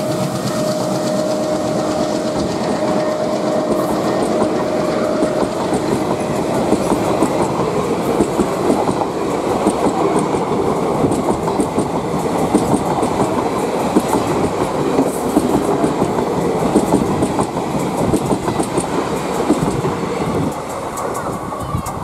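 The coaches of a passenger train rush past on the adjacent line, heard from another moving train, with a dense, rapid clickety-clack of wheels over rail joints. A horn note trails off over the first few seconds, and the clatter drops about twenty seconds in as the last coach clears.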